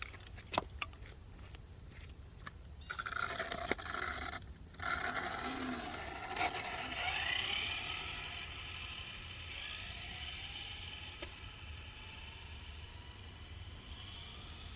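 Faint, wavering whine of a brushless electric RC car motor as the car is driven slowly, over a steady outdoor background.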